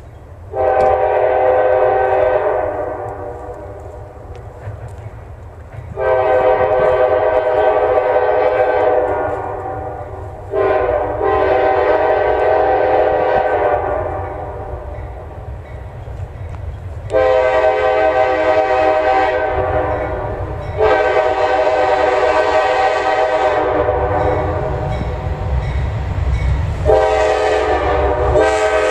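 CSX diesel freight locomotive's horn sounding a series of long blasts, six in all, as the train approaches. The locomotive's low engine rumble grows louder near the end as it draws close.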